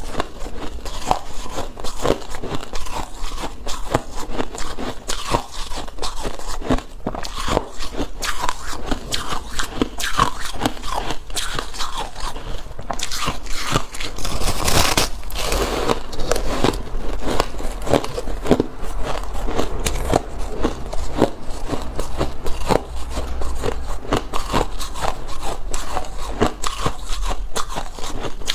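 Soft shaved ice being bitten and chewed: a dense run of crisp crunches and crackles, louder and fuller for a couple of seconds about halfway through.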